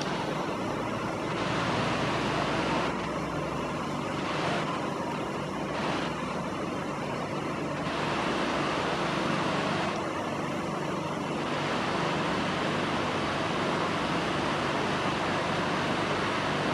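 Steady rumble of distant vehicle engines with a low hum, a few stretches of faint higher hiss coming and going over it.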